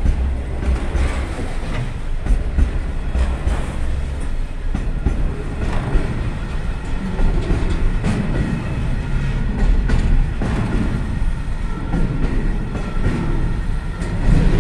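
Freight train running past, a steady heavy rumble with repeated clicks of the wagon wheels over the rail joints.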